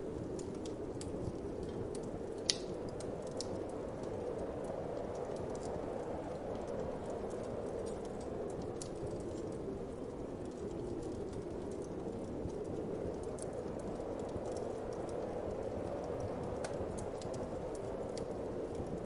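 Wood fire crackling with scattered small pops and one sharper pop about two and a half seconds in, over a steady low whoosh of wind.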